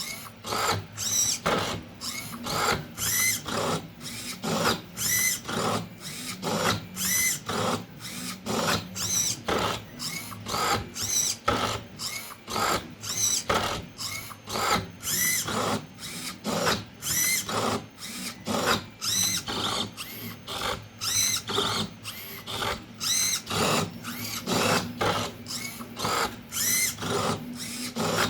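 The servo motors of a 3D-printed Rubik's cube solving robot whir in a long run of short bursts, about two a second, each a brief whine that rises and falls, as its arms grip and turn the cube's faces.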